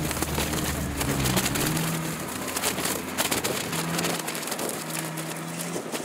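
Modified Suzuki Jimny's engine running at low revs as it crawls over rough, stony ground, with scattered clicks over the steady drone. The deep rumble under the drone drops away about four seconds in.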